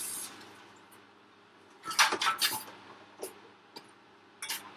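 Kitchenware being handled: a cluster of knocks and clatters about two seconds in and a few more near the end, after a short hiss dies away at the start.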